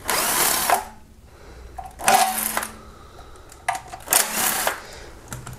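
Cordless ratchet with a 10 mm socket spinning out oil pan bolts in three short bursts, each under a second, about a second and a half apart.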